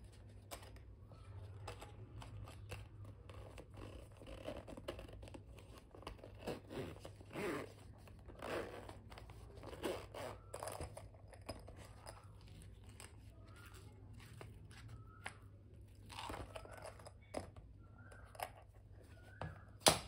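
Zip on a moulded hard-shell pencil case being pulled along in a few noisy strokes, with scraping and rustling as the case is handled, and a sharp knock near the end.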